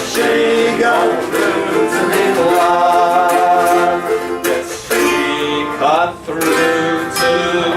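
Folk band playing a song: plucked acoustic guitar under a melody line of held notes, with a brief drop in level about six seconds in.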